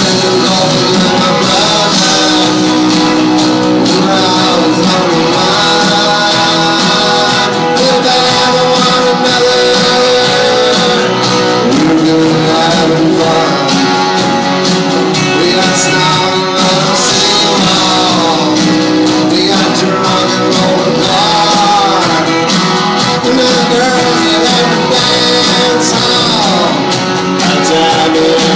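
Live country-rock band playing: drums, electric and acoustic guitars and keyboards, recorded from the audience in a concert hall. The music runs on steadily with a melody line that slides between notes.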